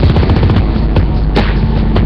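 Loud rock music with drums: a fast run of low drum hits, and a sharp hit about one and a half seconds in.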